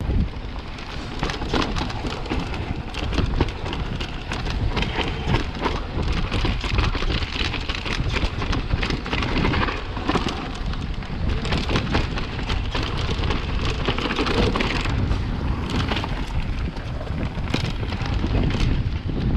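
Mountain bike descending a rough trail: a steady rush of wind on the microphone and tyres over dirt, with constant small rattles and knocks from the bike over the bumps.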